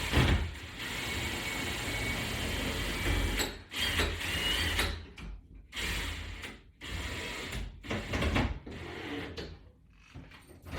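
Cordless screw gun driving a toggle-bolt screw into the wall to tighten its butterfly: one run of about three seconds, then three shorter stop-start bursts.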